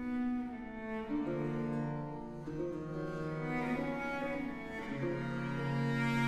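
Solo cello playing a melody of long held notes, accompanied by a continuo of theorbo, violone and harpsichord.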